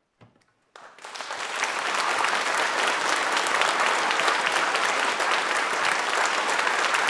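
Concert audience applauding: after a brief hush the clapping breaks out about a second in, builds quickly and holds as steady, dense applause.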